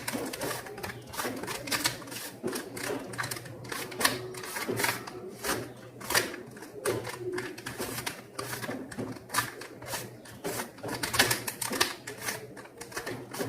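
Stiff, worn plastic Rubik's Cube being turned quickly by hand to scramble it: a rapid, irregular run of clicks and clacks, several a second, as the layers snap round. The cube is old and hard to turn.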